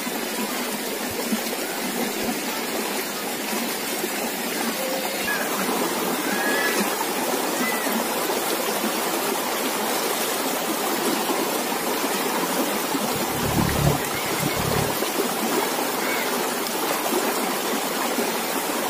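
River water rushing steadily past the bank. A brief low rumble comes about two-thirds of the way in.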